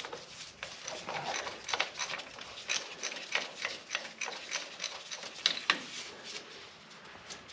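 3/8-inch hand ratchet clicking in irregular runs of ticks as bolts are backed out.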